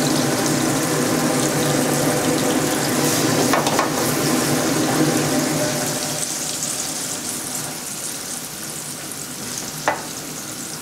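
Fermented black beans frying in hot oil in a wok, a steady sizzle that eases off after about six seconds. A metal ladle knocks against the wok a few times.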